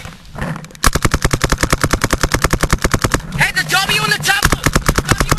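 A paintball marker fires a rapid, even string of shots, starting about a second in and going on without a break. Players shout over it partway through.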